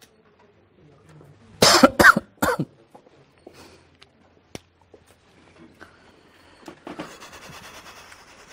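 A person coughing three times in quick succession, about two seconds in. A softer, noisy hiss follows near the end.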